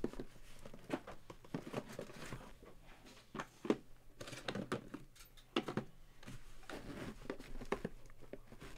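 Cardboard boxes being lifted out of a cardboard shipping case and set down on a table: irregular light knocks, taps and scrapes of cardboard on cardboard.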